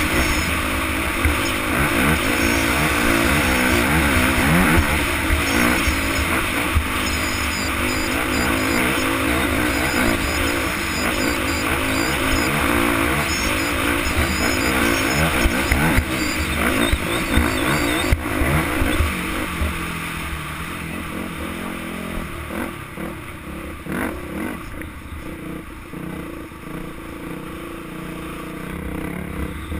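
Dirt bike engine running at speed, its pitch rising and falling with the throttle, over heavy wind rumble on the helmet camera. From about 19 seconds in it is quieter and steadier.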